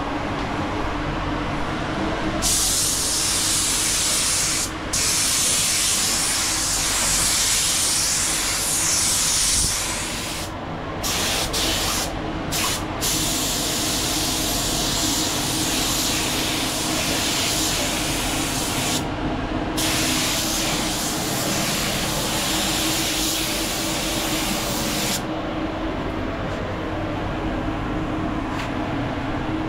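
Air spray gun spraying clear coat: a loud hiss of atomising air in several long passes with short breaks between them, starting about two seconds in and stopping about five seconds before the end. A steady low hum runs underneath.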